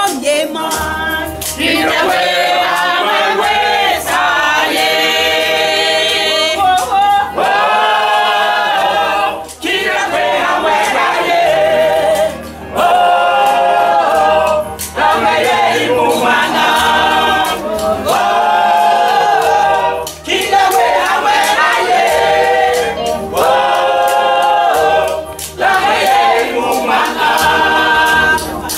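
Church choir singing together in phrases a few seconds long, over a low, regular beat.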